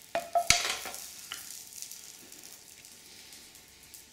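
A few knocks of the hot frying pan and spoon in the first half-second as the cooked Brussels sprouts are served into a bowl, followed by the soft sizzle of the hot pan and food that fades away.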